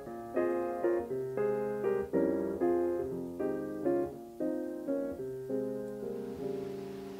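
Background piano music: notes and chords struck in a steady rhythm about twice a second, each ringing and fading, with the playing dying away near the end.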